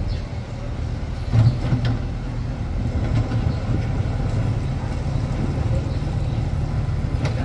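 Diesel engine of a small tracked excavator running steadily, with a few short knocks and scrapes as its bucket digs into railway track ballast, the loudest about a second and a half in.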